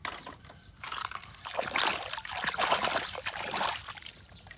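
Water trickling and splashing as a toy vehicle is rinsed. It starts at once, is heaviest in the middle and tapers off near the end.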